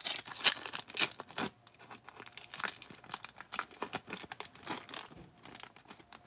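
Foil wrapper of a 1991 Fleer Ultra baseball card pack being torn open and crinkled by hand: a run of sharp crackles, loudest in the first second and a half, then lighter crinkling as the wrapper is peeled back.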